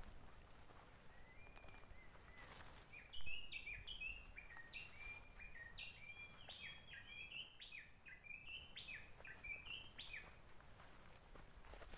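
A bird singing faintly: a long run of quick, short chirping notes that step up and down in pitch, over a low outdoor background hiss. A single sharp knock about three seconds in is the loudest sound.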